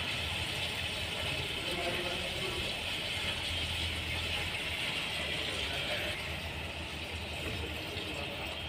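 Petrol pouring in a steady stream from a plastic jerrycan into a car's fuel tank through the fuel-pump opening, easing off about six seconds in as the can runs empty. A low steady hum runs underneath.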